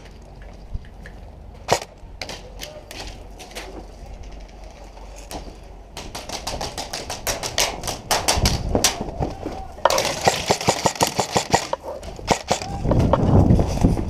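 Airsoft guns firing: a few scattered single shots at first, then rapid strings of shots from about six seconds in, growing denser and louder around ten seconds in.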